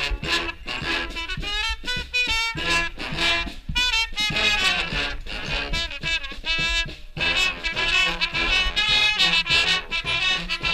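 Street brass band playing live: trumpets, trombones and saxophones in short, punchy phrases, with the whole band coming in fuller and denser about seven seconds in.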